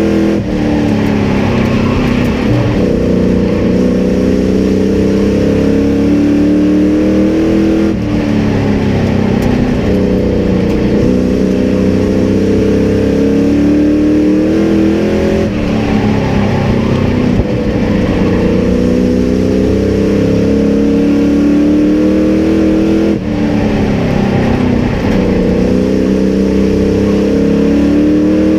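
Racing sport truck's engine heard from inside the cab at full race pace: the pitch climbs on the throttle, then drops sharply as the driver lifts into a turn, about every seven or eight seconds, lap after lap.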